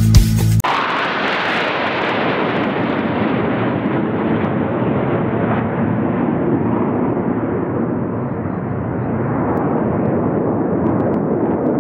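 Jet aircraft flying past: a steady rushing engine noise that takes over from music cut off less than a second in, growing slightly duller toward the end.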